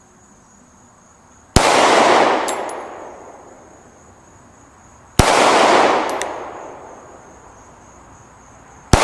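Three single shots from a SIG P365 XL 9mm pistol, roughly three and a half seconds apart, the last one right at the end; each crack rings out and echoes away over more than a second.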